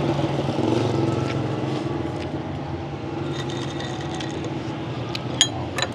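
A steady low hum of background noise, easing slightly after the first second or so, with two sharp clinks of tableware near the end.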